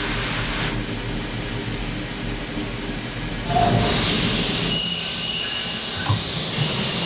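DMG Mori DMU 50 CNC mill roughing Monel 400 under flood coolant: a steady hiss of spraying coolant over the machine's running hum. About halfway through the sound shifts to a louder, steadier high whine as the low hum falls away.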